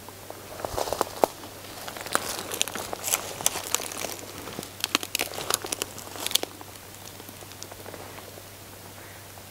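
Dry leaves and twigs crackling and crunching in a dense run of sharp snaps, dying down after about six and a half seconds.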